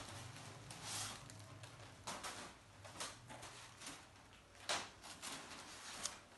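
Thin paper kites rustling and crinkling as a stack is handled and lifted, in short bursts about once a second.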